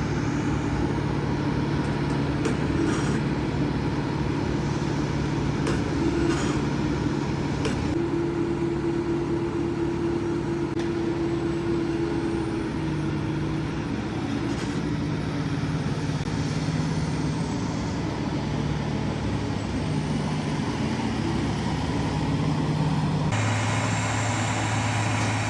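The Detroit diesel of a diesel-electric LeTourneau log loader running steadily under load, with a higher tone held for a few seconds near the middle and a few sharp knocks early on. The sound changes abruptly near the end.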